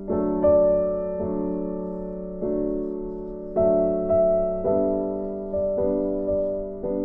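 Slow background piano music: notes and chords struck about once a second, each left to ring and fade.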